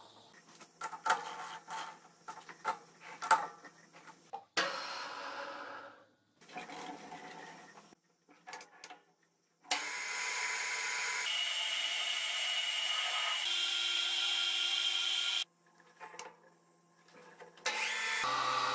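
Small metal parts and tools clicking as they are handled, then a metal lathe running and cutting a metal workpiece: a steady whir with a high cutting hiss from about ten seconds in. It stops for about two seconds near the end, then cuts again.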